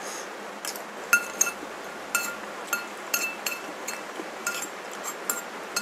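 A metal spoon clinking and scraping against a ceramic bowl, about fifteen short ringing clinks at an uneven pace, as the last of a bowl of bakso is scooped up.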